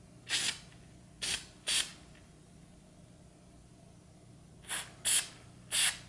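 Aerosol can of white gloss enamel spray paint giving short hissing bursts, six in all: three in quick succession in the first two seconds and three more near the end.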